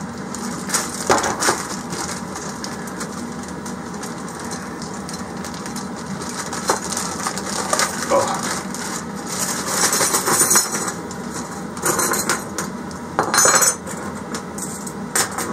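Small metal heater parts, the exhaust muffler's brackets and hardware, clinking and rattling as they are handled, in scattered short bursts over a steady background noise.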